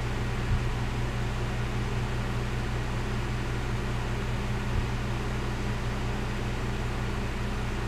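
Steady low hum with an even hiss, like a fan or electrical hum in the recording, with two faint low thumps, one about half a second in and one near five seconds.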